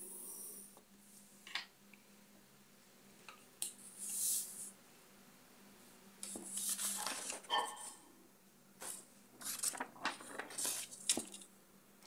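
Faint paper rustling with light knocks and scrapes in scattered short bursts, several close together in the second half, as sheets of drawing paper on a clipboard are handled.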